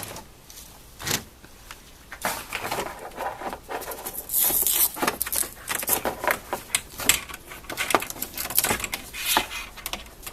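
Rustling and clicking of a keyboard's packaging being handled, with a short ripping noise about four seconds in as a velcro strap is pulled open.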